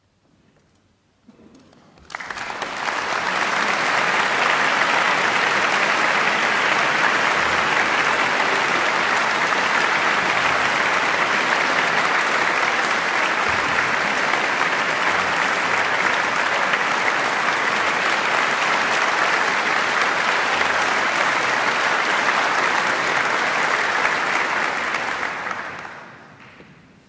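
Audience applauding, starting suddenly about two seconds in, holding steady, and dying away near the end.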